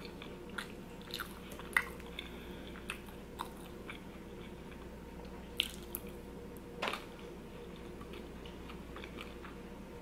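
Close-up mouth sounds of a person eating poutine: soft chewing of gravy-covered fries with scattered wet clicks and smacks, the sharpest about five and a half and seven seconds in. A faint steady hum runs underneath.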